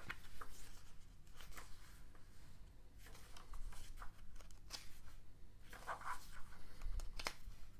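Pages of a small paper booklet being opened and turned by hand: a series of short paper rustles and flicks.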